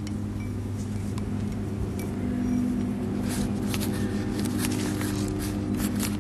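A steady low drone with held tones. From about three seconds in, a pencil scratches on paper in quick short strokes over it.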